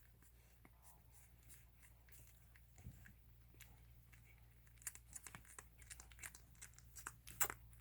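Newborn puppies suckling at their mother: faint wet clicks and smacks, sparse at first and coming quickly from about five seconds in, over a low room hum.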